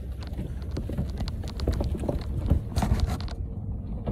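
Pickup truck creeping down a rocky dirt track: tyres crunching over gravel and stones, with many small clicks and knocks over a low rumble.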